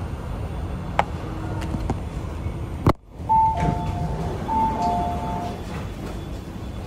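MTR Tuen Ma Line train running through a tunnel with a steady low rumble, which breaks off abruptly about three seconds in. Then the train's door chime sounds, a two-note high-then-low ding-dong played twice, as the doors open at the platform.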